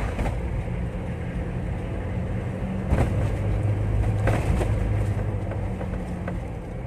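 Mitsubishi L300 pickup's diesel engine running steadily while driving, heard from inside the cab. The low hum grows louder for a couple of seconds in the middle, with two brief knocks about three and four seconds in.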